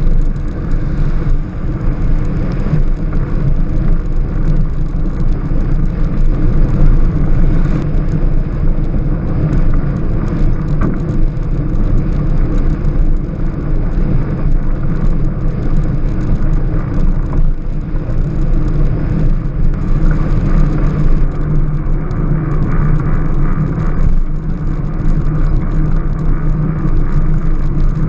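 Strada Carbon velomobile rolling along the road: a steady low rumble of tyre and wind noise that runs unbroken.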